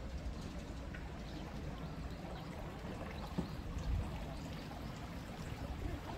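Water of a small stream running steadily, with a low rumble underneath and a brief thump about four seconds in.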